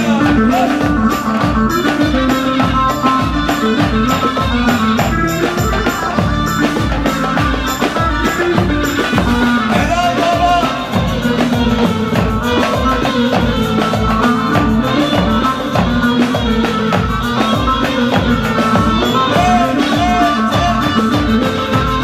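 Live Turkish folk dance music: a davul bass drum beating a steady, fast rhythm, with a sustained melody line over it.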